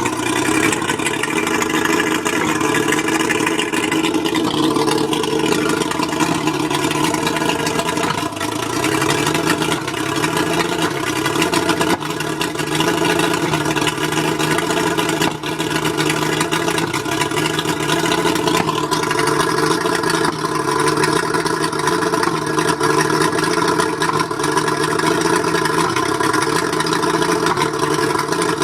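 Mercury 135 outboard motor running rough with a misfire, which the owner thinks may be the spark plugs. The engine note runs steadily, wavering a little about a third of the way in.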